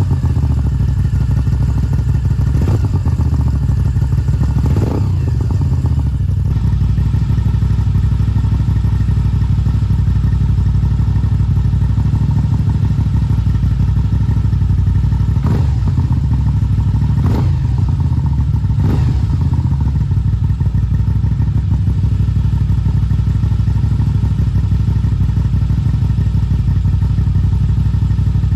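Moto Guzzi V7 850 Stone's air-cooled transverse V-twin idling through Mistral short conical exhausts with the DB killers removed, still warming up after a cold start. There are brief throttle blips, three within the first five seconds and three more a little past the middle.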